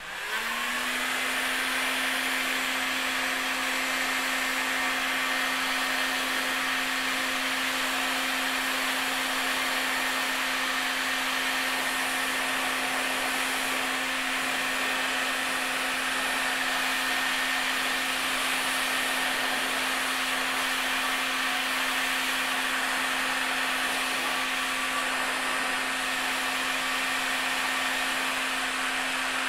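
Electric heat gun switched on, its fan motor spinning up within the first half second, then running steadily with an even rush of air and a steady hum. It is shrinking heat-shrink tubing onto battery wires.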